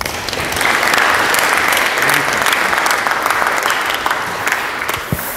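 Audience applauding, steady and then tapering off near the end.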